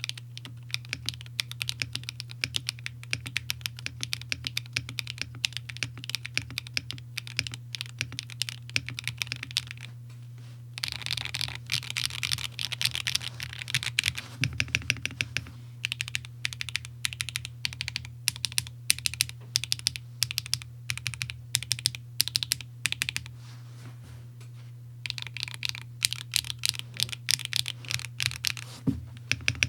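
Typing on a Bakeneko65 mechanical keyboard with HMX Xinhai switches on an aluminium plate and GMK Tuzi clone keycaps: fast runs of keystroke clacks, pausing briefly twice. A steady low hum sits underneath.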